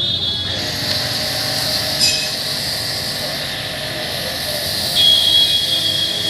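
Pressure washer spraying, a steady hiss of water with a sharp click about two seconds in and a high squealing whine from about five seconds in.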